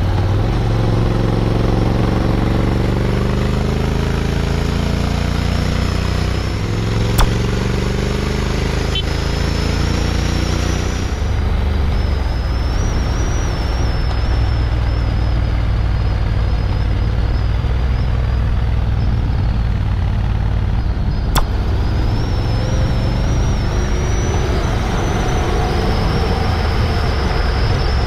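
Honda X-ADV's parallel-twin engine running while riding, with wind and road noise; its pitch shifts up and down during the first ten seconds or so, then holds steadier. Two sharp clicks, about seven and twenty-one seconds in.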